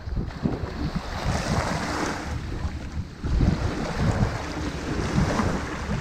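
Small waves breaking and washing up the beach, the surf swelling about a second in and again around four seconds in. Wind buffets the microphone throughout with a low rumble.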